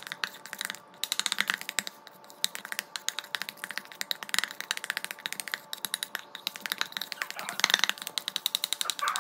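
Small wire whisk beating a thin flour-and-yeast batter in a stainless steel mixing bowl: a fast, uneven run of metal clicks and scrapes as the tines strike the bowl's side.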